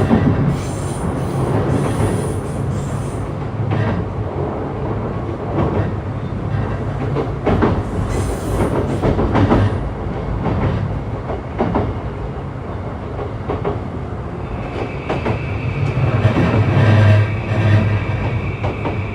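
Running sound inside a JR East E235-1000 series electric train under way: a steady low hum with repeated rail-joint clicks. A steady high-pitched wheel squeal sets in about three-quarters of the way through.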